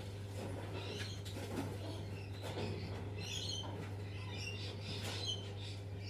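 Birds chirping in short, scattered calls, over a steady low hum.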